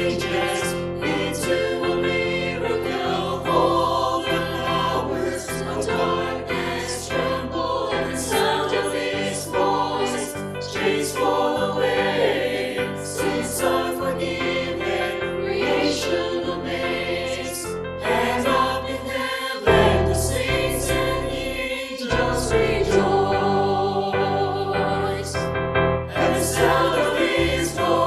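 Church choir singing a Christian worship song.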